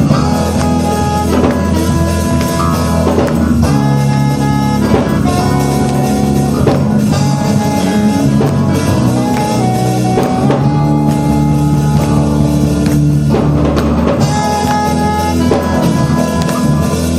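Live gospel band playing an instrumental passage of praise and worship music, with a drum kit keeping time under a bass line and sustained chords that change every second or two.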